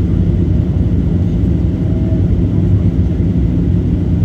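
Airliner noise, a steady low rumble with a constant hum of engines and airflow, with no sudden events.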